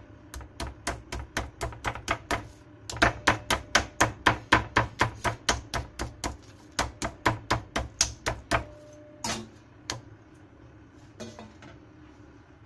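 Metal meat tenderizer mallet pounding raw pork collar slices on a plastic cutting board to tenderize them: rapid, even blows about four or five a second, with a short pause about two seconds in. The pounding stops about nine seconds in, and a few scattered knocks follow.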